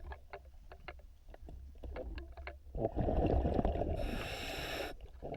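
Underwater sound from a diver's breathing regulator: scattered small clicks and ticks, then a loud rush of exhaled bubbles from about halfway through, with a hiss of drawn-in air near the end.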